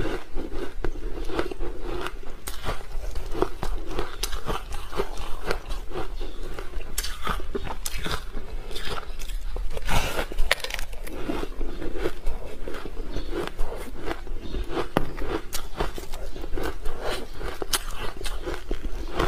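A person biting and chewing soft white ice coated in matcha green-tea powder: many crisp crunches in quick, irregular succession throughout.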